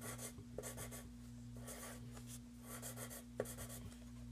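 Pencil drawing on paper: a series of short strokes with brief pauses between them, and one sharp tap about three and a half seconds in.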